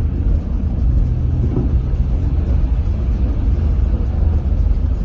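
Steady low road and engine rumble heard inside a moving car's cabin as it drives along a rain-soaked, flooded highway.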